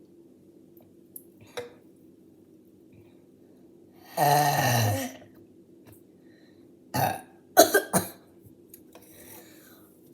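A person burping: one long, loud burp about four seconds in, lasting about a second and falling in pitch, from gulping carbonated soda. A few shorter, sharp bursts follow near the end.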